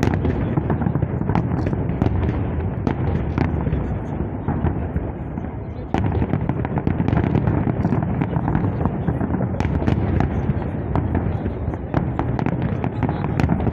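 Fireworks salute going off: a dense, continuous run of bangs and crackling pops, with a sudden break about six seconds in.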